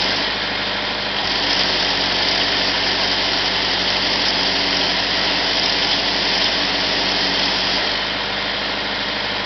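A poultry equipment washer's on-board 37 hp Kubota engine running steadily with its high-pressure pump, a constant hiss over the engine note. The level dips slightly about eight seconds in.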